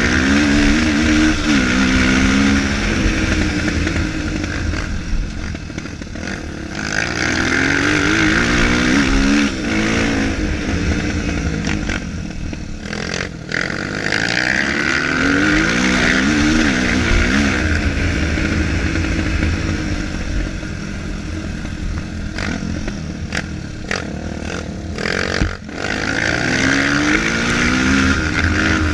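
Honda single-cylinder four-stroke trail bike ridden hard round a dirt track. The engine revs up and drops back again and again as it accelerates and shifts, with the hardest-revving stretches every seven or eight seconds.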